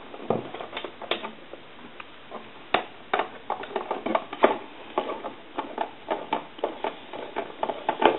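Irregular light clicks and taps, several a second, from the plastic case of a Conair Metropolis telephone being handled as it is opened up and its case screws are worked on.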